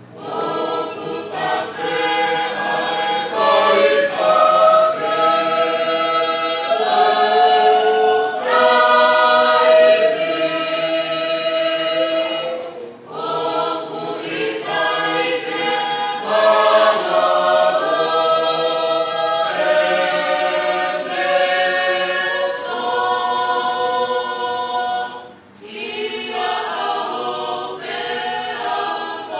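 Choir singing a hymn a cappella in several voice parts, in long held chords, with brief pauses for breath about 13 and 25 seconds in.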